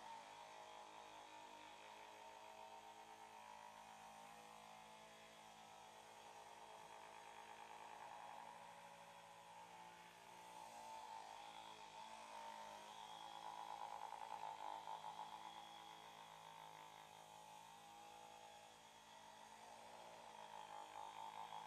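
Faint, steady electrical hum with a buzzing edge, swelling a little louder a few times.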